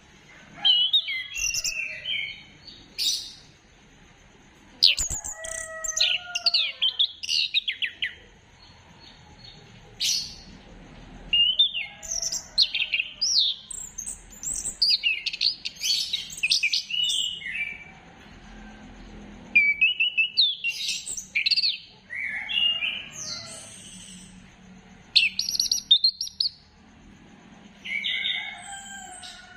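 Chestnut-capped thrush (anis kembang) singing: a string of varied, fast whistled phrases full of rising and falling slurs, each phrase lasting one to several seconds with short pauses between them.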